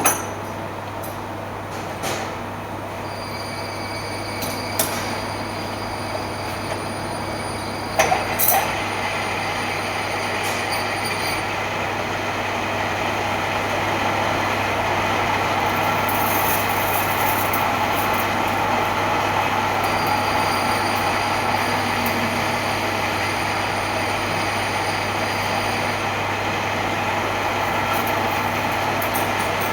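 A machine running steadily with a constant low hum. A few sharp knocks and clicks come in the first nine seconds, and the running noise grows slightly louder partway through.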